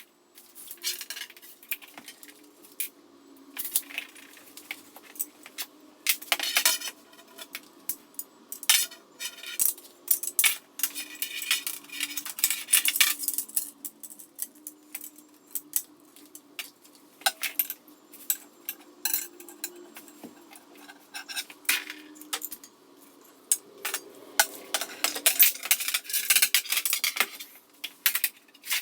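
Metal clinks, taps and knocks from 15 mm copper pipe being handled and bent, coming irregularly with busier clusters of clinking, over a faint steady hum.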